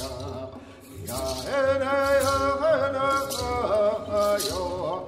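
A man sings a Hopi chant with a strong wavering voice, starting about a second in, over sustained string-quartet chords, with a hand rattle shaken in short bursts about once a second.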